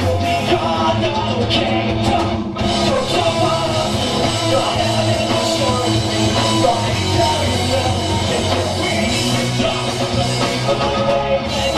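Rock band playing live and loud, with drum kit, guitars and a voice singing.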